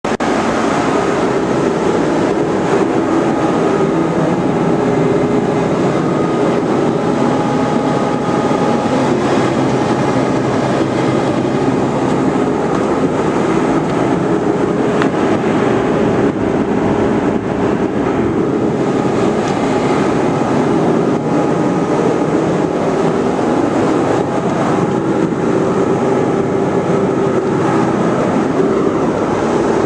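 Commercial cooling equipment running steadily, from Marley cooling towers and a Trane Odyssey air-conditioning unit. It is a continuous, unchanging drone of several steady hum tones over an even rushing noise.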